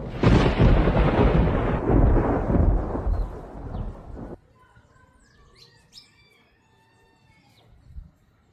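A loud, deep rumble like thunder fills the first four seconds, fading a little before it cuts off abruptly. Several birds then call and whistle faintly, with short rising and falling notes.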